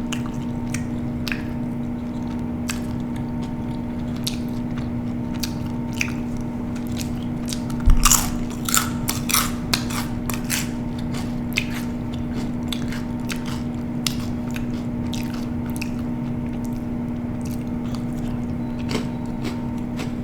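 A person eating close to the microphone: chewing with scattered sharp crunches, loudest in a cluster about eight to ten seconds in, over a steady low hum.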